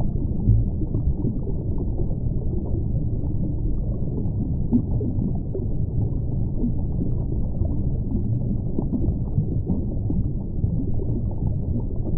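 Underwater ambient noise picked up by the diving camera: a steady, muffled low rumble with faint crackling.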